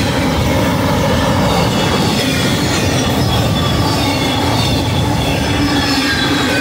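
Intermodal freight cars carrying truck trailers rolling past at speed: steady, loud noise of steel wheels on rail, with faint high wheel squeals coming and going.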